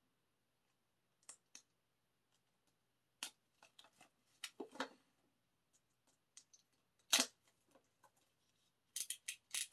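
Plastic shrink-wrap on an album box being slit with a small cutter and handled: scattered short crackles, scratches and clicks, the sharpest about seven seconds in and a quick run of them near the end.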